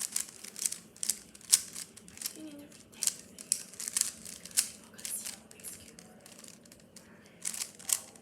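Rubik's cube layers being twisted by hand: a quick, irregular run of plastic clicks and clacks, thinning out past the middle, with a couple more turns near the end.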